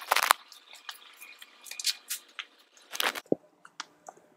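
Handling noise as a framed solar panel is turned over in its cardboard shipping box: scraping and rustling of cardboard and packing, with several sharp knocks, the loudest at the very start and about three seconds in.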